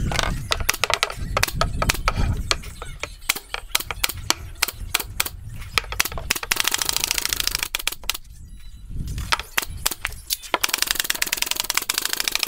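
Pneumatic nail gun firing into plywood panels of a subwoofer box: many sharp shots in quick, uneven succession, with two stretches of steady hissing in the second half.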